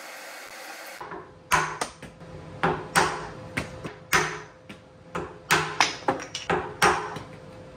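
A mallet knocking wooden clamping blocks off a panel, where they were tacked on with CA glue as temporary clamping blocks. A rapid, irregular series of about fifteen sharp knocks, starting about a second in.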